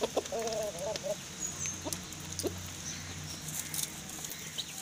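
Gamecock clucking: one wavering call about a second long near the start, then a few short clucks. Faint high chirps sound in the background.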